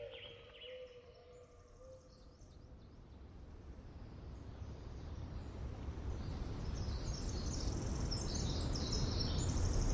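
Natural outdoor ambience changing over: faint birdsong and a held call fade out in the first two seconds, then a low rumbling background swells steadily louder while thin, high-pitched bird chirps come in from about four seconds.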